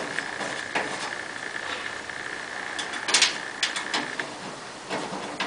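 Light clicks and scrapes of screws being started by hand into a pellet stove's sheet-metal side panel: a few scattered ticks, with a small cluster about three seconds in. A faint steady high whine runs under the first four seconds.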